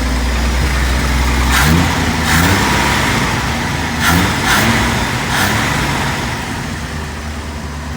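Chevrolet C10 pickup's engine running on a freshly replaced carburetor, idling and blipped up in quick revs: a pair about a second and a half in, another pair about four seconds in, then settling back to a steady idle.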